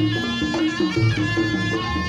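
Reog Ponorogo procession music: a slompret (shawm) plays a bending, reedy melody over repeating pitched gong notes and a low sustained tone.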